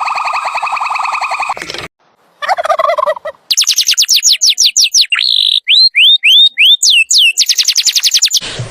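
Bird calls in quick succession. First a fast pulsed call, then a short falling call, then high whistles repeated rapidly, some sweeping down and some rising, for several seconds.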